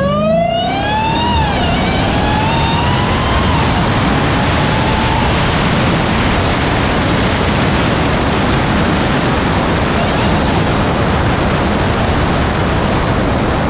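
Dodge Charger Hellcat's supercharged V8 accelerating, its supercharger whine climbing, dropping back twice at upshifts in the first few seconds, then fading under loud, steady wind and road noise on the hood-mounted microphone.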